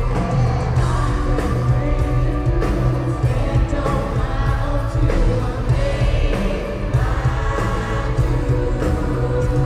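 Live pop-rock band and lead singer heard from the audience at an arena concert, with a boomy, heavy bass and a steady full sound.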